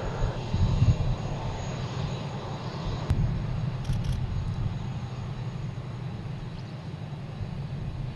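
Airbus A380's four turbofan engines at low taxi thrust, a steady low rumble that eases slightly toward the end, as the airliner taxis past.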